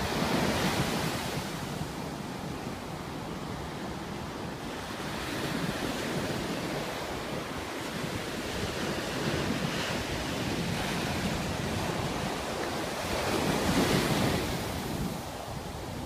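Ocean surf breaking on a sandy beach and washing up the shore in a continuous rushing wash. It swells loudest just after the start and again near the end as bigger waves break.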